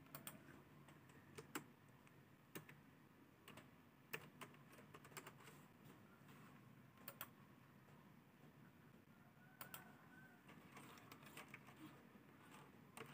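Near silence with faint, irregular clicks from a computer mouse and keyboard in use.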